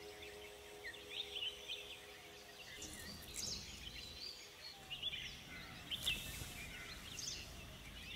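Wild birds chirping and calling: many short, quick chirps and trills over a faint, steady outdoor background.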